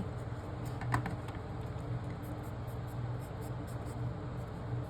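Faint, irregular scratchy strokes of writing marks into a puzzle grid, with one sharp click about a second in, over a steady low hum.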